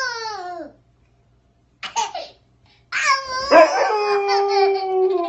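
A toddler's howl falling away in pitch, then a short cry about two seconds in. About three seconds in the child howls again and a dog joins in with one long, slowly falling howl, the two voices overlapping.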